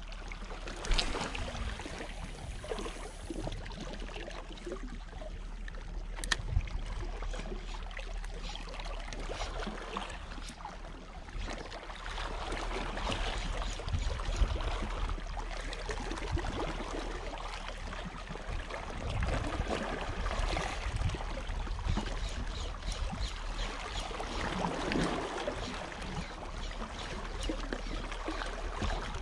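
Small sea waves washing and gurgling against the rocks, swelling and easing every few seconds, with wind on the microphone.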